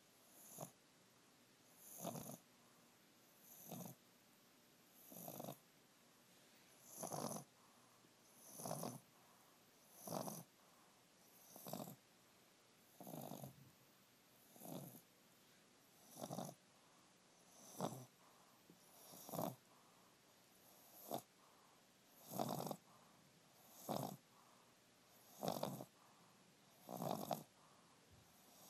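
English bulldog snoring in a steady rhythm, one short snore roughly every second and a half.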